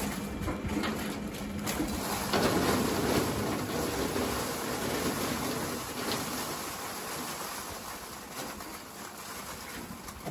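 Scallops in their shells pouring out of a tipped wire cage into a metal hopper: a dense rattling rush that swells about two seconds in and slowly thins out, over a faint steady hum.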